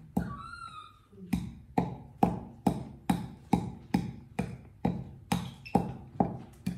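Wooden pestle pounding dark seeds in a wooden mortar, evenly spaced knocks about two a second.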